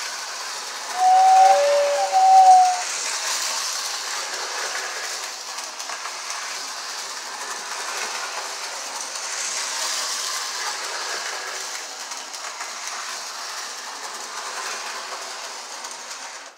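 Lionel 8632 4-4-2 O gauge model steam locomotive with New York Central whistling tender: the tender's two-tone whistle blows for about two seconds, about a second in, over the steady whirr and rail clatter of the running train.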